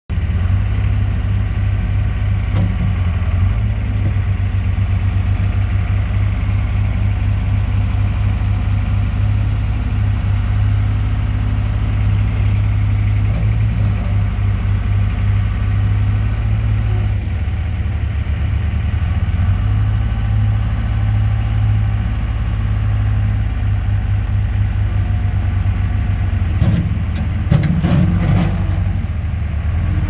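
Case 75XT skid steer's diesel engine running steadily while the machine drives and works its loader arms. A few sharp knocks near the end.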